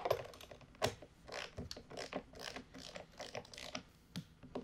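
Torque wrench with a 1/2-inch socket ratcheting in short, irregular clicks as it tightens the nut on a battery's negative terminal, with a sharp click right at the start.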